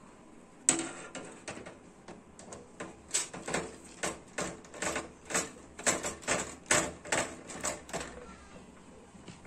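Clicks and taps from work on a computer cabinet: one sharp click about a second in, then a run of sharp clicks, about two a second, for several seconds.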